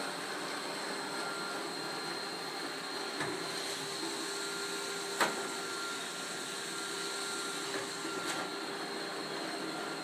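iRobot Roomba 530 robot vacuum running: a steady whirr of its vacuum and brush motors with a thin whine. A few short knocks come through, the loudest about five seconds in.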